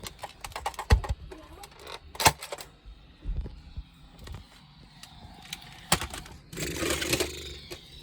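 Scattered sharp plastic clicks and knocks from Nerf blasters being handled and worked, with a brief rustling clatter about seven seconds in.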